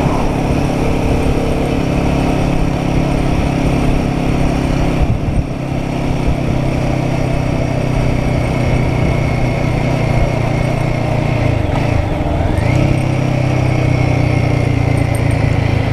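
Royal Enfield Guerrilla 450's single-cylinder engine running at steady cruising speed, with wind rush. The engine note dips briefly about five seconds in, and dips again and picks back up around twelve seconds in, as the throttle is eased and reopened.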